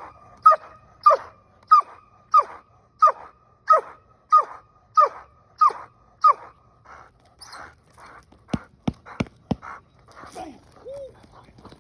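A dog whining in a steady series of short, falling cries, about one and a half a second, which stop about two-thirds of the way through. Four sharp knocks follow in quick succession.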